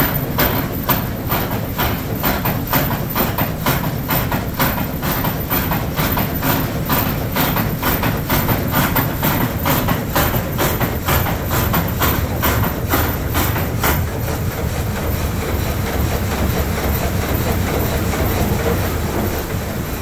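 Water-powered up-and-down sash sawmill cutting: the saw and its ratchet feed knock rhythmically, about three times a second, over the steady rush of water driving the mill. About fourteen seconds in, the knocking stops and only the rushing water goes on.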